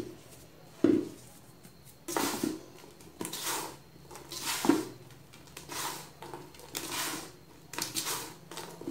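Handfuls of damp, clumpy baking soda being crushed and poured back into a metal bowl: about seven soft crunching, hissing strokes, roughly one a second. Several of them open with a dull knock of the hand against the bowl.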